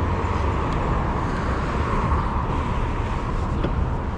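Steady city street traffic noise with a constant low rumble.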